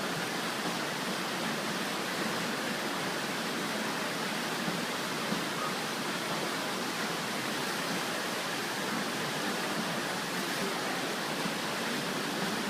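Steady rushing of flowing river water, an even noise with no distinct splashes or pauses.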